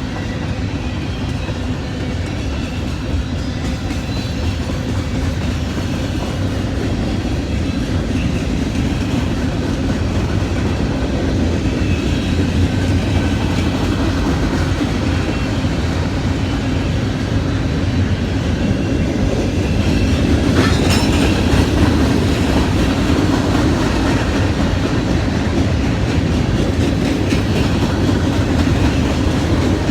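Steady, rough mechanical rumble that grows slightly louder, with a brief sharp noise about two-thirds of the way through.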